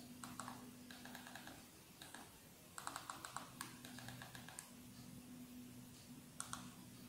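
Faint clicks of remote-control buttons pressed in short quick runs, stepping down a menu list on a smart TV, over a faint steady low hum.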